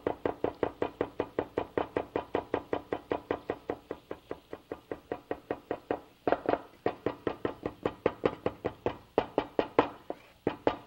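Cleaver chopping fresh parsley on a wooden cutting board: rapid, even knocks of the blade on the board, about six a second, with a short pause about six seconds in and another near the end.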